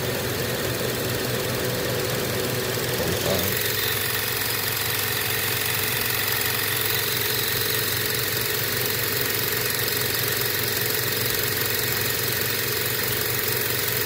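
Inverter-drive heat pump compressor running on a VFD with a steady mechanical hum, its sound changing slightly about three seconds in. The owner suspects the compressor is slugging liquid refrigerant when sped up.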